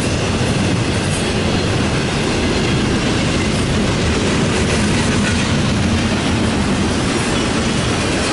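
Double-stack intermodal freight train's well cars rolling past, a steady loud rumble of steel wheels on rail.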